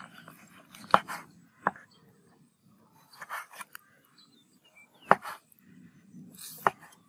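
Kitchen knife slicing soaked shiitake mushrooms on a wooden chopping board: four sharp knocks of the blade hitting the board, irregularly spaced, with softer cutting and scraping sounds between them.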